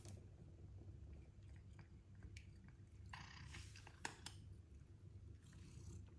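Faint crunching and small clicks of a cat chewing dry treats, over a low room hum, with a short rustle about three seconds in and a sharp click a second later.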